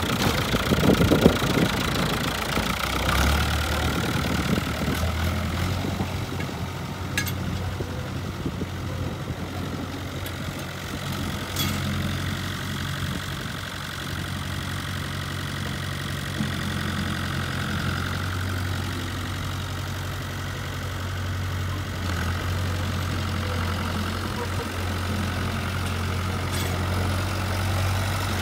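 Long 560 tractor's diesel engine starting, with a rough irregular burst in the first couple of seconds, then settling into a steady idle. The note rises a little a few times, with a few faint clicks over it.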